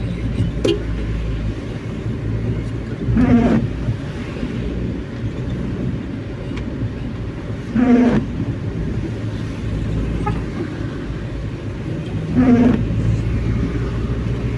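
Car windshield wipers on intermittent, each sweep about every four and a half seconds giving a short squeaking judder across the wet glass, over steady engine and road rumble inside the cabin. The blades are worn and due for replacement.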